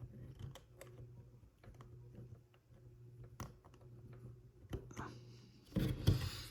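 Small plastic toy car parts clicking and tapping together as they are handled and pressed into place by hand, a few scattered clicks at a time, with a louder burst of handling noise near the end.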